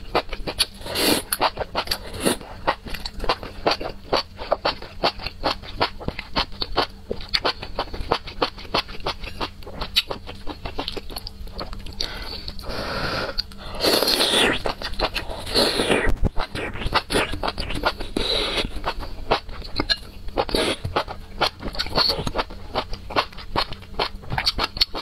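Close-miked eating of a spicy noodle dish: rapid wet chewing and mouth clicks, with a few longer slurps near the middle as strands are sucked up.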